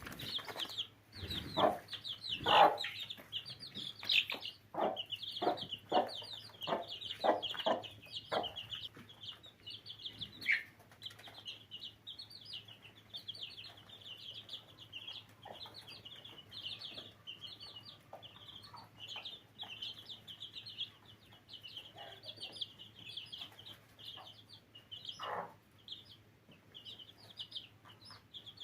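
Domestic chickens clucking, with a busy high peeping that runs throughout. A run of louder, fuller calls comes in the first eight seconds, then the peeping goes on alone with an odd louder call.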